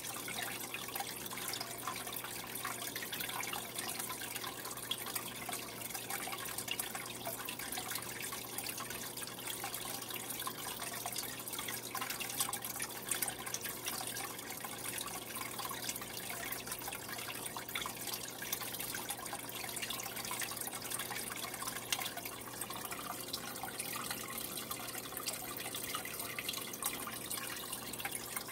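Aquarium water trickling and dripping steadily, with many small splashes, over a steady low hum.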